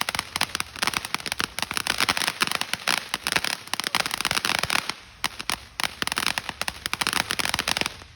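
Firework crackling: a dense, rapid run of sharp pops and snaps that stops suddenly near the end.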